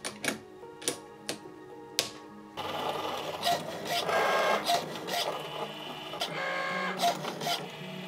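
A few sharp clicks, then from about two and a half seconds in a Cricut Maker cutting machine runs, its carriage and rollers whirring in uneven pulses as the rotary blade cuts the fabric on the mat. Light background music plays underneath.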